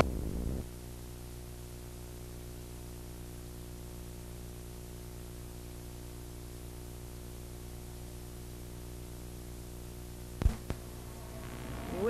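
Steady electrical hum with a buzz of many even overtones on a blank stretch of videotape, after a brief burst of noise as the picture breaks up. Two sharp clicks come about ten and a half seconds in.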